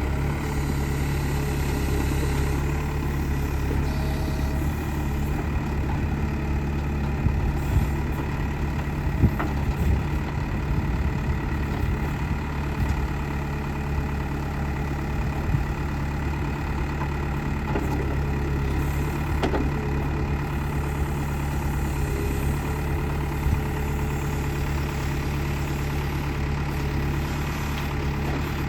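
Backhoe loader's diesel engine idling steadily, with a few sharp knocks about a third of the way in and again near the middle.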